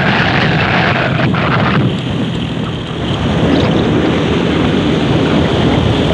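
Steady road and engine roar of a car driving at speed on a highway, heard from inside the cabin; the higher hiss drops back about two seconds in and returns about a second later.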